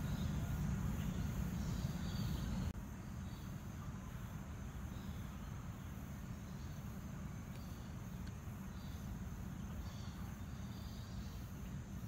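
Outdoor ambience of insects chirping on and off at a high pitch over a low steady rumble; the whole sound steps down quieter about three seconds in.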